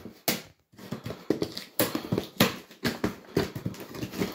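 Cardboard firework boxes being shifted and handled: a quick, irregular series of knocks and thumps, several a second.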